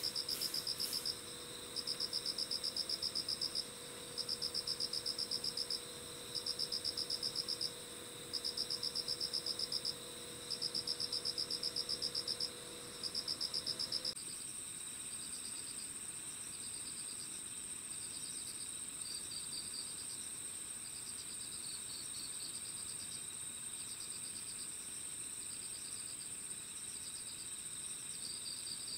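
Night chorus of crickets and other singing insects. For about the first half, one insect repeats loud pulsed trilling phrases of about a second and a half, with short gaps between them, over a steady high trill. About halfway through the phrases stop, and a continuous high trill carries on with softer, irregular chirps.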